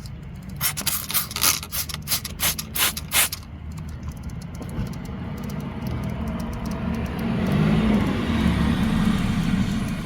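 A quick run of about nine sharp clicks in the first three seconds, then a rushing noise with a low rumble that builds from about four seconds in and is loudest near the end, like a motor vehicle going by.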